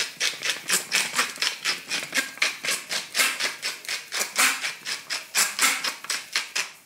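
Salt being put on food: a quick, even run of scratchy rattling strokes, about five or six a second, that stops just before the end.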